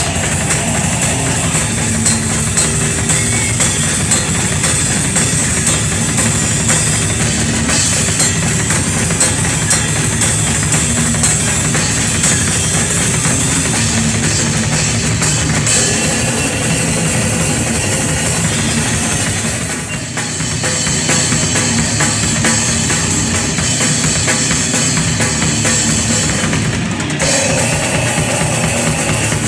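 Live rock band playing, recorded right at the drum kit: drums and cymbals are up front, with electric guitar underneath. The music dips briefly about two-thirds of the way through, then comes back in full.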